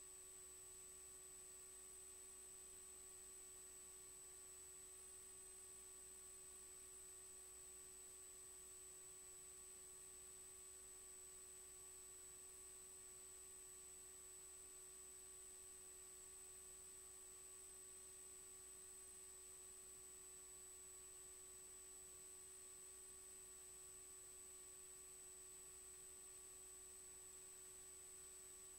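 Near silence: only faint steady tones, a high whine and a lower hum, over a faint hiss.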